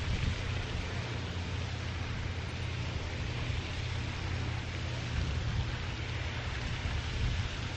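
Wind buffeting the microphone: a steady, unsettled low rumble with a hiss over it.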